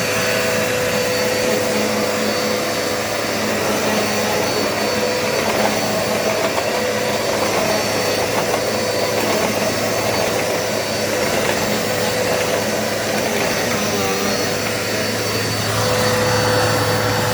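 Dirt Devil Multi-Surface upright vacuum cleaner running steadily on carpet, a loud motor whine and airflow rush with a steady hum.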